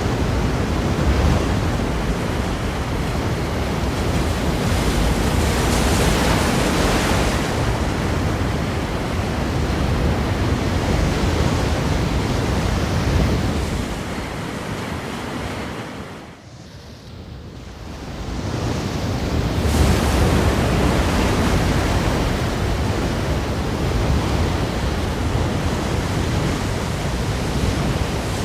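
Ocean surf: waves breaking in a continuous wash of noise. About sixteen seconds in the sound drops away briefly, then swells back to full.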